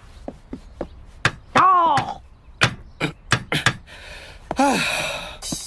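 Cartoon sound effects: a string of sharp knocks and thwacks at uneven spacing, with two short cries that fall in pitch, one about one and a half seconds in and one near the end, and a burst of hiss in the last second and a half.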